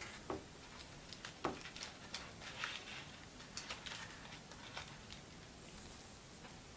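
Faint scattered clicks and soft rustles of fingertips and nails picking through sugar-dusted Turkish delight pieces in a candy box.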